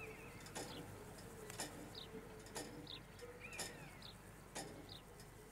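Faint birdsong: short chirps, with a soft cooing line beneath, over a quiet background. A light tick recurs about once a second.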